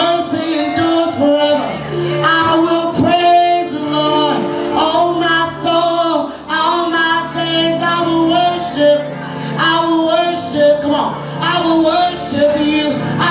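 Live worship music: male and female voices singing a slow worship song over sustained instrumental accompaniment, in a large hall.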